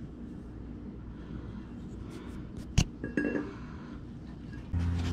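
Steel flywheel clinking and knocking against the engine's crankshaft flange and adapter plate as it is fitted by hand, with one sharp knock and a short metallic ring about halfway through. A steady low hum starts near the end.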